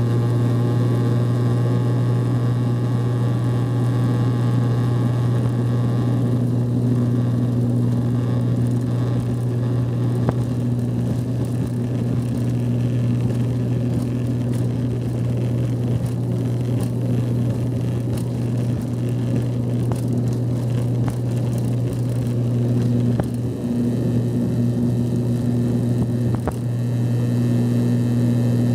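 Twin turboprop engines of an Antonov An-140 heard from inside the cabin: a steady propeller drone with a strong low hum and a fainter tone above it.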